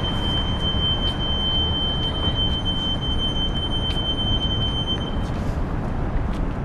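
A steady high-pitched squeal, holding one pitch for about five seconds and then cutting off abruptly, over a constant low rumble of street noise.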